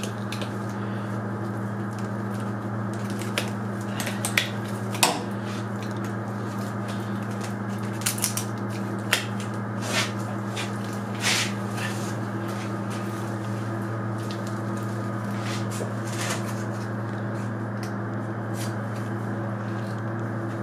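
Butcher's knife cutting and scraping through a deer carcass's spine joint and meat, in scattered short scrapes and clicks, the sharpest about five seconds in. Under it runs a steady low machine hum.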